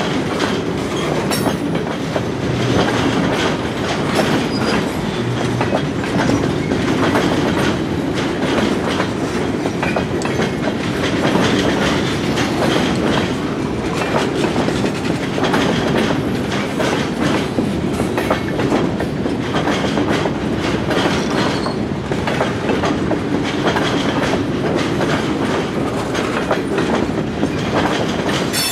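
Freight train rolling past, its cars' wheels clicking over the rail joints in a steady clickety-clack.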